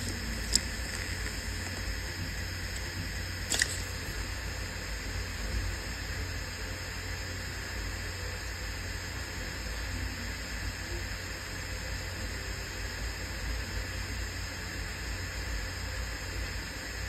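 Hitachi Travelstar Z5K750 5400 RPM 2.5-inch laptop hard drive spinning steadily at full speed after spin-up, a constant hum and whine over amplified hiss. Two sharp clicks sound, about half a second and three and a half seconds in.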